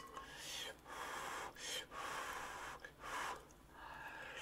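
A person's breath close to the microphone: four hissy breaths in a row, each about half a second to a second long.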